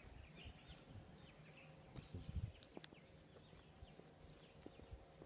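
Near silence: faint outdoor ambience, with a few soft taps and a low bump about two seconds in.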